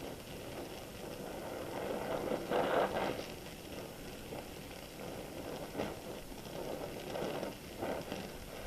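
Gas welding torch flame hissing steadily while welding a steel bracket, swelling louder a few times, most of all about three seconds in.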